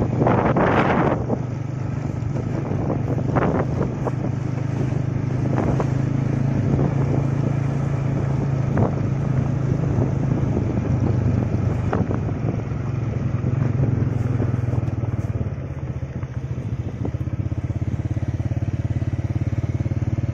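Motorcycle engine running steadily under way, with wind noise over the microphone and a few short sharp knocks.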